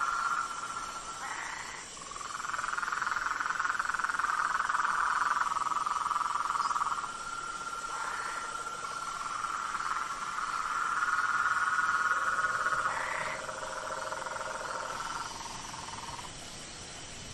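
A chorus of frogs giving long, steady trills, several at once, overlapping, each lasting a few seconds before another takes over.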